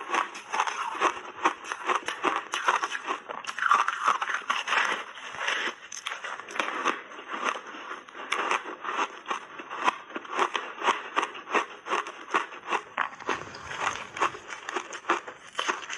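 Refrozen block ice being bitten and chewed: a dense, continuous run of crisp crunches and crackles.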